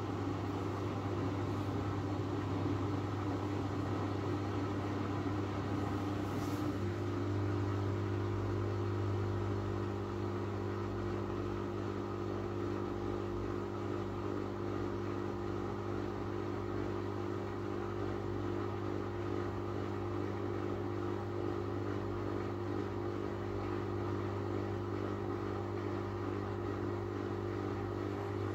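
Miele W433S front-loading washing machine in its intermediate spin at about 500 rpm: the motor and drum run steadily with a strong low hum, the steady tones shifting slightly about six seconds in. The owner marks this spin as held back by a suds lock.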